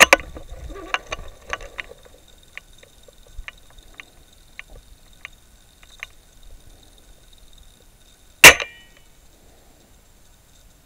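SSG24 spring-powered airsoft sniper rifle, fitted with an airbrake, firing once about eight seconds in: a single sharp report with a brief metallic ring. Before it come a few faint scattered clicks.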